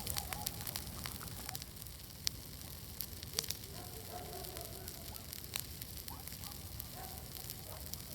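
Large wood bonfire burning, crackling and popping in sharp, irregular snaps.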